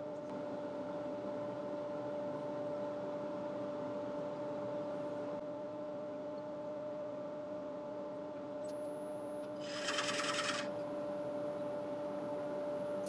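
Wood lathe running with a steady hum while a scraper cuts the inside of a yew bowl, with a brief, louder, harsher cut about ten seconds in.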